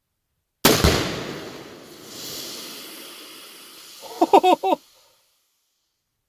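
A Tannerite charge strapped to an old refrigerant tank detonating: one sudden boom that rumbles away over a couple of seconds, swelling again briefly like an echo. About four seconds in, a person gives a short excited shout.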